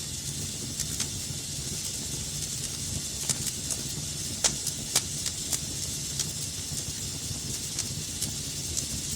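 Fire crackling in a fireplace: a steady hiss and low rumble of the flames with scattered sharp pops, the two loudest about four and a half and five seconds in.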